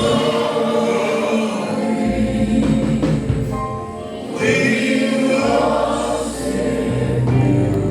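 Gospel worship song: a choir and congregation singing together over keyboard and bass, with the bass notes entering about two seconds in and again about halfway through.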